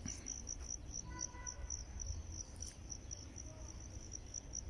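Cricket chirping steadily, about five short, high-pitched chirps a second, over a low steady rumble.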